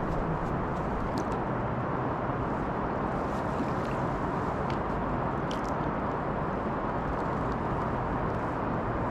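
Steady rush of flowing river water, with a faint low hum underneath and a few faint, short high chirps.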